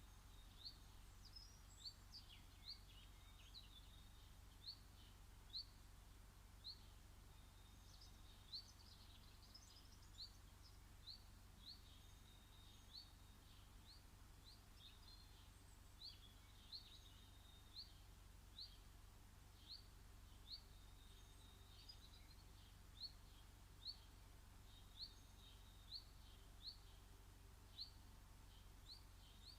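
A garden bird repeats a short, high chirp about once a second. Other birds twitter faintly now and then, and a steady low hum runs underneath.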